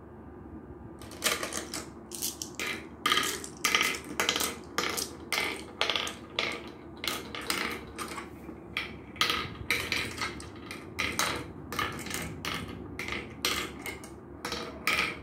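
Glass marbles clicking as they are dropped one by one into the pits of a wooden Gurpale (mancala-type) board, about two clicks a second, starting about a second in.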